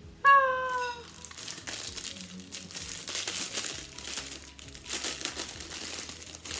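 Paper wrapping being crinkled and rustled by hand as a gift is unwrapped, with irregular rustles throughout. Near the start there is a short vocal exclamation from a woman, slightly falling in pitch.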